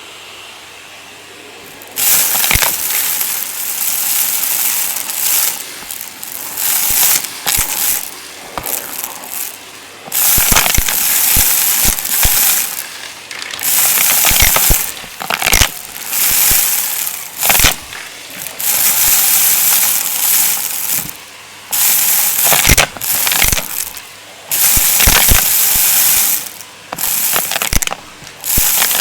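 A vacuum cleaner sucking up crunchy debris from the floor: a low steady hiss, then from about two seconds in, repeated loud strokes of crackling and rattling as the debris is pulled in, each lasting one to three seconds with short quieter gaps between.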